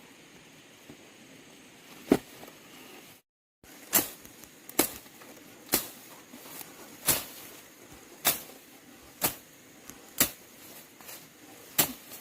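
A series of sharp knocks, about one a second, typical of tools striking parts during repair work; the sound drops out briefly a little over three seconds in.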